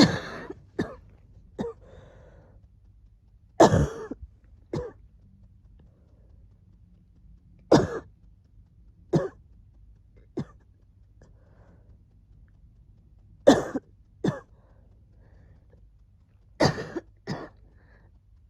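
Repeated short coughs from a cold, single or in quick pairs every few seconds, some throaty like throat clearing, with the cold's wheezing easing.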